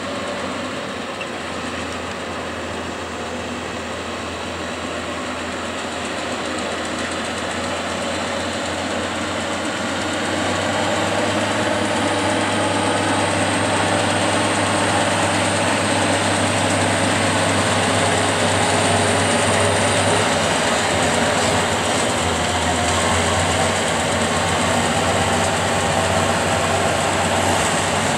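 John Deere tractor pulling a John Deere round baler while baling hay: the engine and baler run steadily together, growing louder over about the first ten seconds as the rig comes closer.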